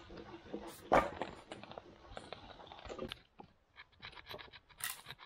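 Knife shaving a dry stick, then sticks clicking and crunching as they are laid onto a campfire lay, with a sharp knock about a second in.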